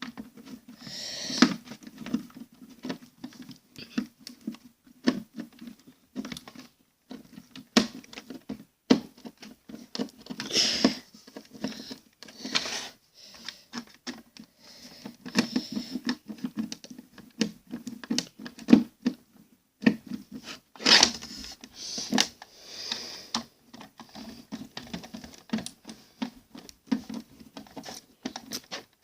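Small Phillips screwdriver turning screws into a plastic VHS cassette shell, with irregular clicking and scratching of metal on plastic and occasional louder clicks, as the screws are driven in tight.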